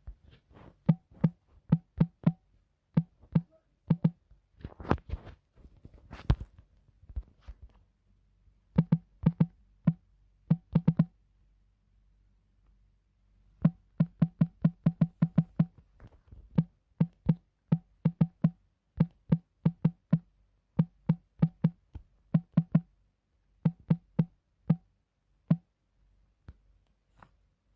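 Sharp drum-machine-like percussion hits, each a dull thump with a click, in quick uneven runs with short pauses between them.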